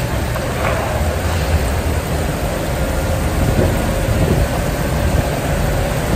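Heavy rain pouring down, heard through an open truck-cab window as a steady hiss, over the low rumble of the truck's diesel engine running.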